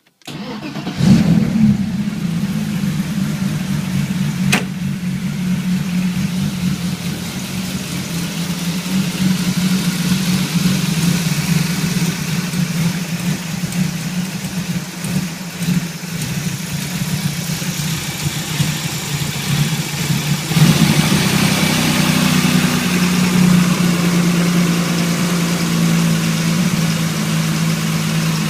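BMW E30 engine starting and running at idle, with a misfire that the owner links to the mass air flow sensor being plugged in. A sharp click comes about four and a half seconds in, and about twenty seconds in the engine sound changes and gets louder.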